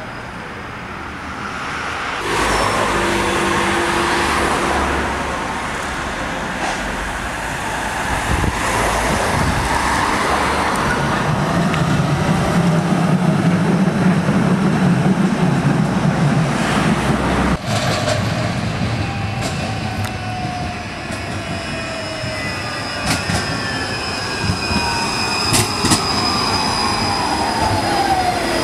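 Electric trams passing close along street track: a steady rumble of wheels on rails and traction drive, with a low hum building in the middle. After a sudden change about two-thirds through, a whine falls in pitch as a tram slows. A high, steady squeal from the wheels and a few sharp clicks from the rails come near the end.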